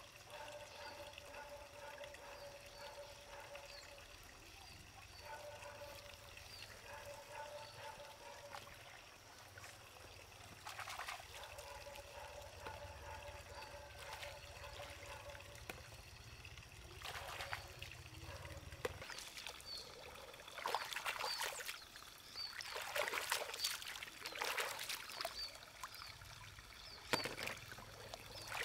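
Shallow pond water sloshing and splashing as a person wades through it and works their hands in the water, the splashes coming more often and louder in the second half. Steady pulsing animal calls run underneath.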